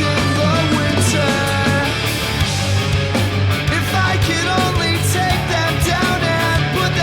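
Loud punk-rock music with distorted guitars, drums and singing.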